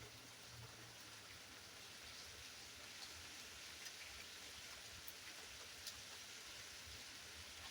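Steady rain, a faint even hiss with the odd single drop ticking sharply on a surface.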